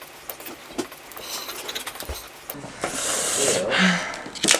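Felt-tip markers tapping and scribbling on paper: light scattered ticks at first, then a louder stretch of fast scratchy scribbling past the middle.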